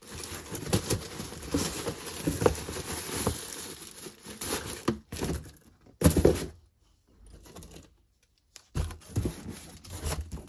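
Packaging being crinkled and torn open by hand, with scrapes and small ticks, and a louder rustle about six seconds in.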